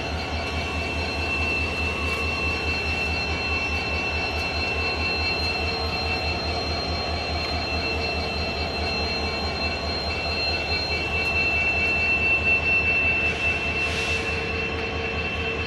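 EMD WDP-4D diesel-electric locomotive rolling slowly past. Its 16-cylinder two-stroke engine runs with a rapid low pulsing and a steady high whine. A brief hiss comes near the end.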